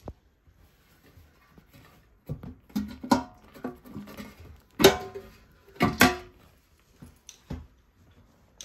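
Hinged plastic litter bin lid on a train seat handled and snapped open and shut by hand: a run of plastic clacks and rattles, with three sharp clacks about five to six seconds in the loudest.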